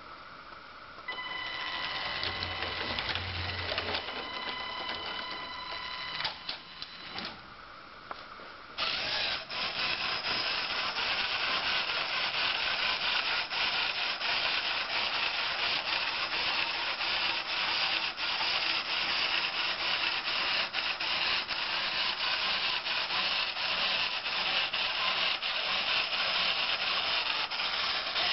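A LEGO train's electric motor whines steadily as the locomotive runs along the track, then stops with a few clicks. About nine seconds in, the LEGO turntable's motor-driven plastic gears start turning it, a steady grinding rattle full of fine clicks.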